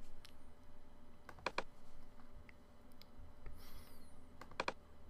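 A few faint, scattered clicks of a computer mouse and keyboard, with quiet room tone between them.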